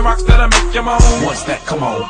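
Hip hop music with rapped vocals over a beat, deep bass hits about a third of a second and a second in, after which the bass drops away.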